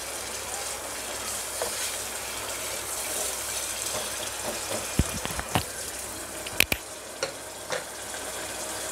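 Tomato-masala puree sizzling in hot mustard oil in an aluminium pressure cooker on high flame. A wooden spatula scrapes and knocks against the pot a few times in the second half.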